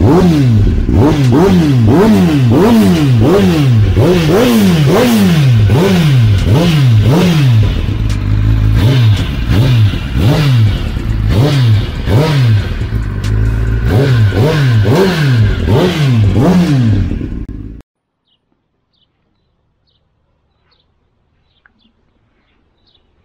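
2021 Kawasaki ZX-10R inline-four revved again and again through a stainless steel Akrapovic full race exhaust, the pitch rising and falling with each quick throttle blip, loud and raspy. The engine sound cuts off abruptly about 18 seconds in, leaving near silence.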